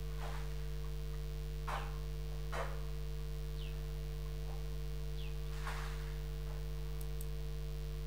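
Steady low electrical hum, with four faint short rushes of noise and two brief high squeaks that fall in pitch.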